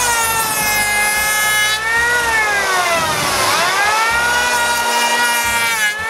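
Handheld electric planer cutting across a timber tenon: its motor whine sags in pitch as the blades bite into the wood and climbs back as the load eases.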